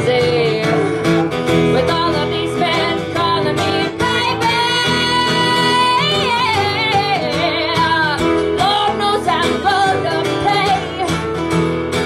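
A band playing a country song on guitar, with a melody line that holds and wavers over steady strumming.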